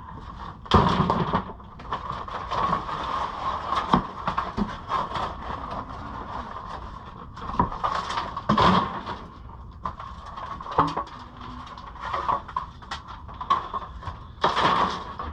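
Irregular knocks, thuds and clatter of rotten boards being pried off and tossed aside, over a steady background hum.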